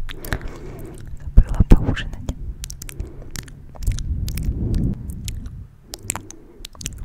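Close-miked wet mouth sounds, a run of sharp clicks and smacks with two loudest about a second and a half in. Under them, hands cupped around and brushing the microphone make a low rumbling handling noise.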